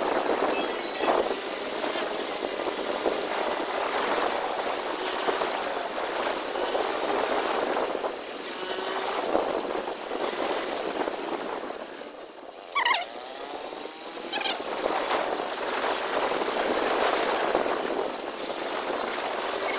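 Motorcycle on the move, with steady wind and road noise rushing over the rider's microphone. About twelve seconds in the rush eases for a moment and a short sound falling in pitch cuts through.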